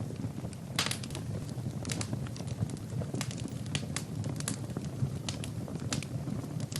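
Wood fire in a fireplace, burning logs crackling and popping at irregular intervals over a steady low rumble of flame, with a quick cluster of pops about a second in.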